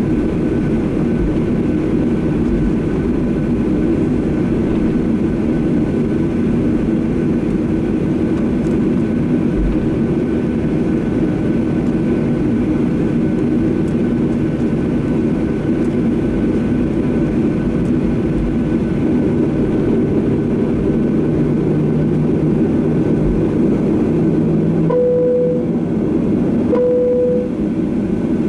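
Steady cabin drone inside a Boeing 737-800 taxiing, from its CFM56-7B turbofans running at low power. Near the end two short, even tones sound about two seconds apart.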